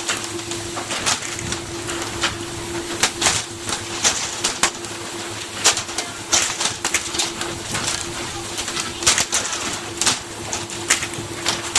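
A steady mechanical hum with many irregular sharp clicks and knocks over it.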